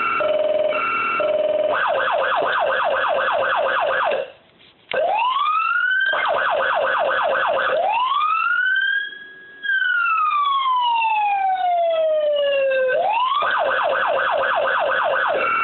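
Federal Signal Touchmaster Delta electronic siren switching through its tones: a two-tone hi-lo alternating between a high and a low note, then a fast yelp of about four sweeps a second, then a slow wail that rises, holds at the top and falls away, then back to yelp and hi-lo near the end. The tone cuts out for about half a second around four seconds in.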